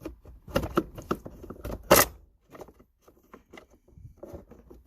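Shifter cable clamp and cable end being pried and worked loose by hand: a string of clicks and scrapes, with one loud snap about two seconds in.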